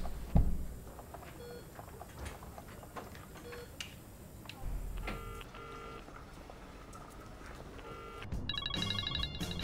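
A desk telephone handset lifted with a clunk, a few faint short dialling beeps, then the ringing tone in the earpiece: a double burr, and another about three seconds later. Near the end a louder, rapidly pulsing electronic sound comes in.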